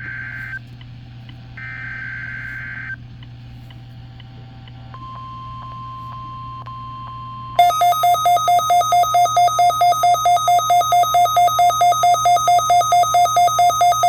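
NOAA Weather Radio Emergency Alert System weekly test: two short screeching data bursts of the alert header, then a steady 1050 Hz warning tone for a couple of seconds. About seven and a half seconds in, the receiver's own alarm sets off, a loud beeping at about four beeps a second that is the sign the warning tone has activated it.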